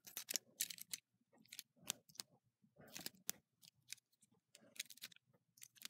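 Faint, irregular clicks and rattles of plastic K'nex rods and connectors being handled and snapped together.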